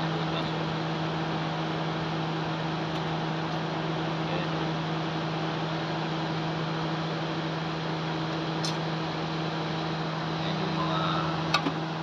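A car running with its A/C system, giving a steady mechanical hum with no change in pitch, and a sharp click near the end.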